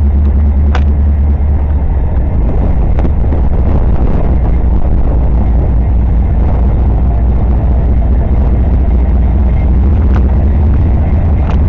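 CSX diesel freight locomotives approaching: a loud, steady low rumble of engines and rolling wheels, with a few sharp clicks.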